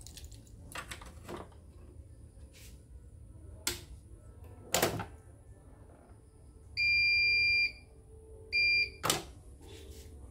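CNY portable embroidery machine's beeper sounding one long high beep of about a second and then a short one, with a few sharp clicks and knocks from handling the machine around them.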